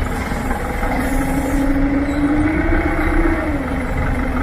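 Heavy vehicle engine running steadily, its note rising a little in the middle and settling back down, as under a brief increase in throttle.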